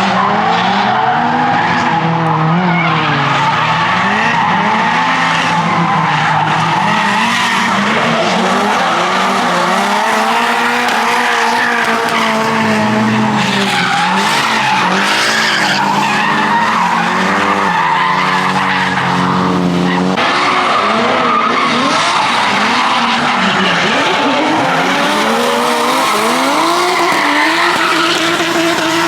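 Drift car engine revving hard through a run, its pitch rising and falling over and over as the throttle is worked, over the constant hiss of tyres skidding.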